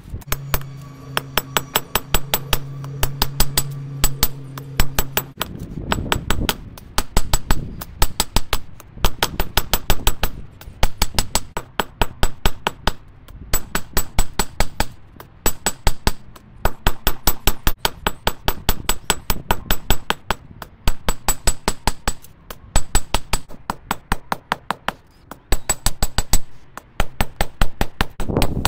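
Hand hammer forging a red-hot piece of old file steel on an anvil: runs of quick blows, about four or five a second, broken by short pauses, each blow ringing off the anvil. A steady hum sounds under the blows for the first five seconds or so.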